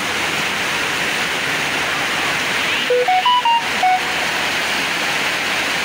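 Storm floodwater rushing and churning along a flooded street and sidewalk, a steady loud wash of water. About three seconds in, a short run of clear pitched notes, stepping up and then back down, sounds for about a second over it.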